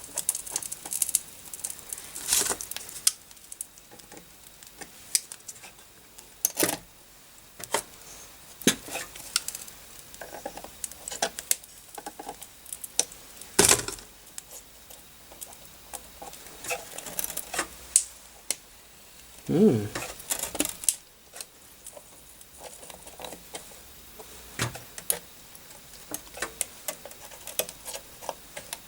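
Scattered clicks, taps and scrapes of metal pliers and a circuit board against a DIY solder pot, as a motherboard connector is pulled at in the molten solder and does not come free. A sharp knock stands out about halfway through.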